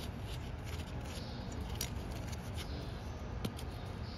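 A few light metallic clicks and scrapes as a loosened drive-flange bolt and its cone washer are worked out of the hub by hand, over a steady low background rumble.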